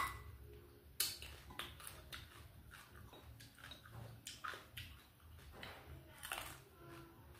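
Close-up eating sounds: chewing and mouth noises, with scattered short clicks and taps of chopsticks against porcelain bowls, one sharper tap about a second in.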